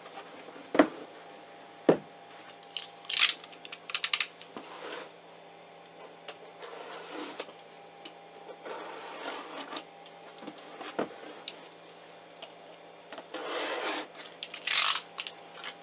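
Cardboard filament boxes being handled on a wooden desk: a few sharp knocks as a box is set down and picked up, and bursts of rubbing and crinkling from the plastic wrap and cardboard. A steady low hum runs underneath.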